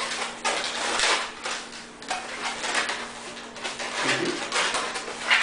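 Latex modelling balloons squeaking and rubbing against each other and the hands as they are twisted and handled, in a run of irregular squeaks, the loudest near the end.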